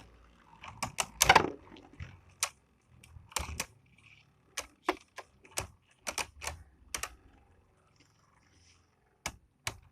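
Two Beyblade Burst spinning tops, Valtryek V3 and Hurricane Fafnir F3, clacking against each other in a stadium mid-battle: irregular sharp hits, sometimes two or three in quick succession, with a pause of about two seconds near the end.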